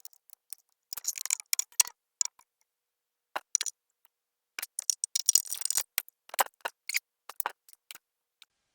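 Hard plastic engine-bay parts, the air intake pieces, clicking and rattling as they are handled and fitted back into place by hand, in two bursts of handling with gaps between.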